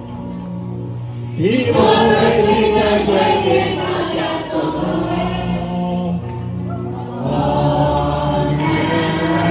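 A group of voices singing a slow song together over sustained low accompanying notes. The singing comes in about a second and a half in and a new phrase starts about seven seconds in.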